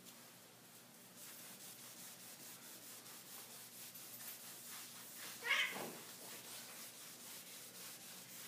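Two cats play-fighting on a tile floor: scuffling, with paws and claws scrabbling on the tiles, and one short cry from a cat about halfway through.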